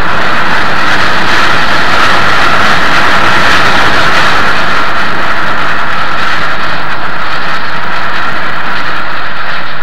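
Southern Pacific AC-11 cab-forward articulated steam locomotive hauling its train, a loud, steady, dense rush of exhaust and running train with no separate beats standing out.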